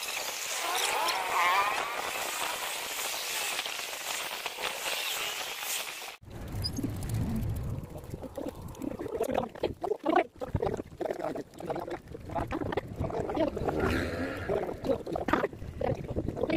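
Fast-forwarded street audio: sped-up voices turned into high, squeaky chatter for about six seconds. After a sudden cut, wind buffets the microphone with a heavy rumble and uneven gusts, with more sped-up chatter faintly underneath.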